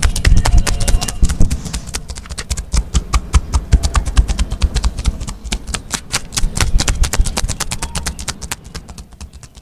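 Hands working on a bare back during a deep-tissue massage: a dense, irregular run of sharp clicks and slaps over low thumps, several to many a second, thinning near the end.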